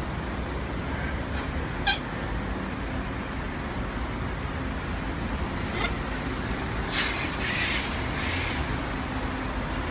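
Steady low rumble with a few short, harsh calls of wild cockatoos: one about two seconds in and a cluster near the end.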